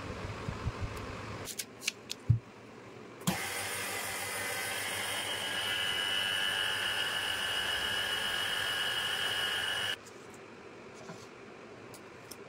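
Jeny-121 LCD/OCA bonding machine's vacuum pump running: a steady hiss with a high whine that starts abruptly after a few clicks about three seconds in and cuts off suddenly about ten seconds in.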